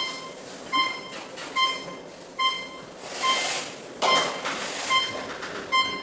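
Electronic beeper sounding a short, even beep about every 0.8 seconds, steady and unchanging, the kind of repeating alert RC radio gear gives while it is powered but not yet linked. A brief rustle of handling noise comes in around the middle.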